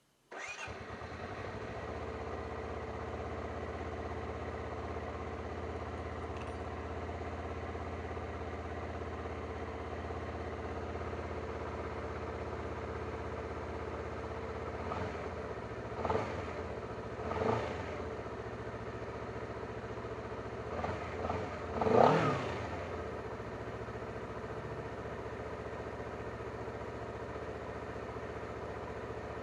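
Honda CBR250RR (MC51) parallel-twin engine starting on the electric starter and catching at once, then idling steadily. A few short throttle blips come in the second half, the biggest about two-thirds of the way in.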